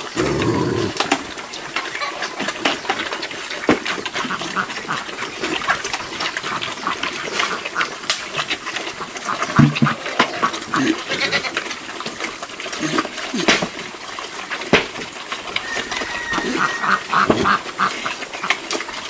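Black pigs eating from shallow feed troughs: constant wet chomping and smacking made of many small clicks, with short grunts and ducks quacking now and then.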